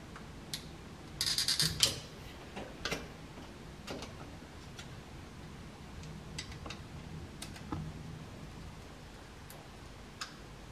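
Small clicks and scrapes of an insulated screwdriver tightening the terminal screws of a two-way light switch, with a short scraping rattle about a second in as the loudest part, then scattered single clicks.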